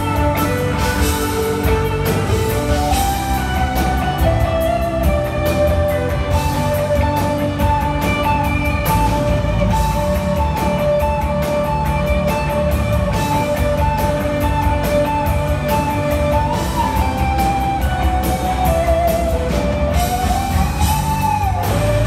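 A live rock band playing, with an electric guitar taking the lead in long held notes and bends over the drums and bass. Near the end the guitar bends a note up and lets it fall back.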